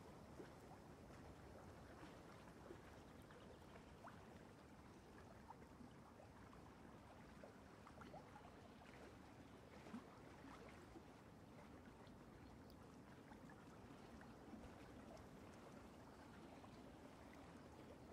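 Near silence: low room tone with a few faint, scattered small ticks.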